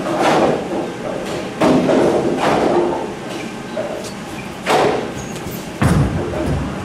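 A Hammer Dark Web bowling ball lands on the lane about six seconds in with a heavy thud and rolls away with a low rumble. Before that, several sharp knocks and clatters echo in the bowling alley.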